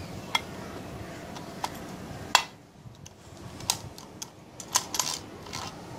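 Scattered sharp clicks and clinks of steel gears and shafts being pressed by hand into their seats in the aluminium crankcase half of a Honda CD-70 engine's gearbox, the loudest about two and a half seconds in.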